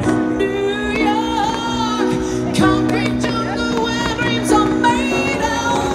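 Live rock band playing through a PA: a lead vocal sung over sustained guitar and keyboard chords, bass and drums.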